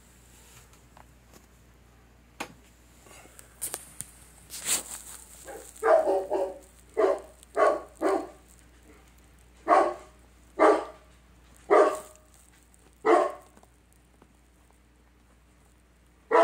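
A dog barking: a run of about nine short barks, roughly one a second, then one more near the end.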